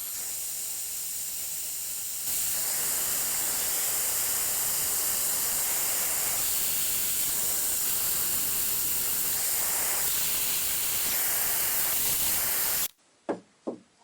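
Blowtorch flame hissing steadily while it heats a steel clamp shaft red hot for bending. The hiss gets louder about two seconds in and cuts off sharply near the end, followed by a few light knocks.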